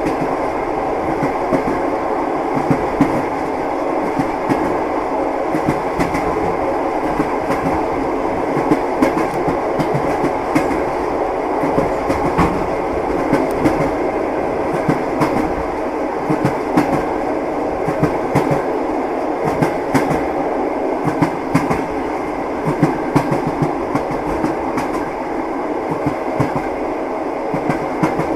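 Train wheels clattering over the rails: a steady rumble of a moving railway car with frequent sharp knocks.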